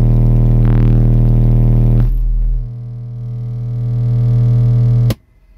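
Two Soundstream XXX 15-inch subwoofers, driven by two Taramps Smart 3 Bass amplifiers, playing a very loud 40 Hz test tone inside the car's cabin, reaching about 147 dB. The note weakens about two and a half seconds in, builds back, and then cuts off suddenly near the end. The owner says the note stops being steady once the voltage drops to around 10 volts, because the amps want more power.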